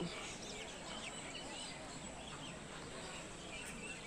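Birds chirping and calling, many short scattered chirps over a steady background hiss.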